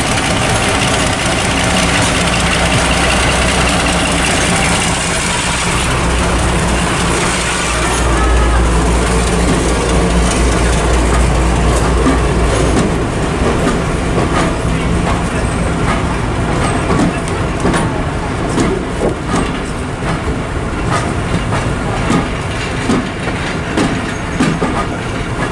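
Class 52 'Western' diesel-hydraulic locomotive running through the station with its twin engines humming steadily; it is loudest as it passes beneath, about eight to thirteen seconds in. Its coaches then roll by with rhythmic wheel clicks over the rail joints.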